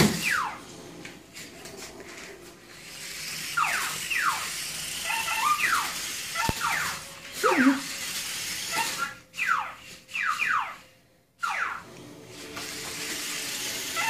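Parrot calling: short, shrill, falling squeaks in quick clusters of two or three, repeated every second or two.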